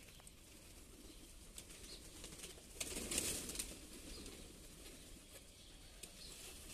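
A flock of feral pigeons being fed, with a short flurry of flapping wings about three seconds in as birds fly in and land, and scattered light taps and wing clatter around it.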